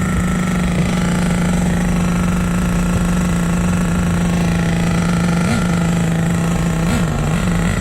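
HPI Savage nitro RC truck's small glow-fuel engine idling steadily after a cold start, with a couple of brief throttle blips near the end.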